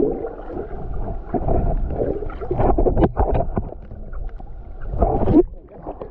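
Muffled splashing and gurgling of sea water around swimmers, coming in irregular surges.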